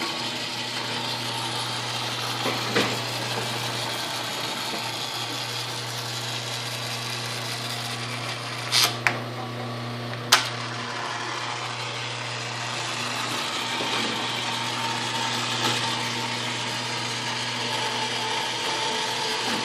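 Myford ML7 metal lathe running under power, its belt drive, change gears and lead screw turning with a steady mechanical gear noise over a motor hum. A few sharp clunks around the middle, as the lead screw's direction lever is shifted.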